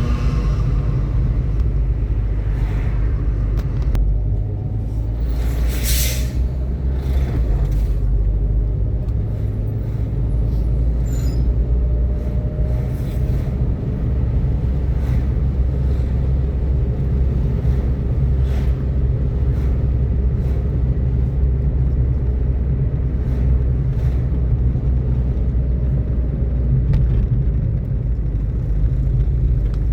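Steady low rumble of a motor vehicle on the road, with scattered short knocks, a sharp one about six seconds in.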